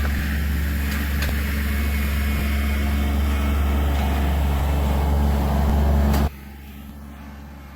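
A motor vehicle's engine running steadily with a low hum, cutting out abruptly about six seconds in, leaving a quieter background hum.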